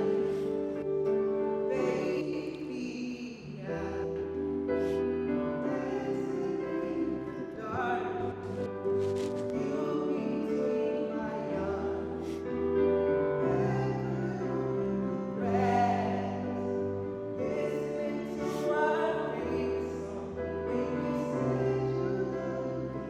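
Slow classical-style music with a singing voice held over sustained accompaniment, its bass notes changing every couple of seconds.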